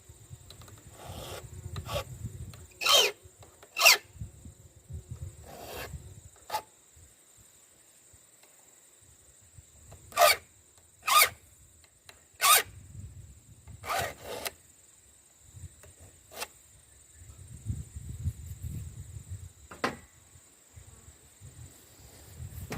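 Hand file rasping across the cutter teeth of a full 3/8-inch chainsaw chain in short, sharp strokes: two strokes, a pause, then a quick run of four, with fainter handling noise between.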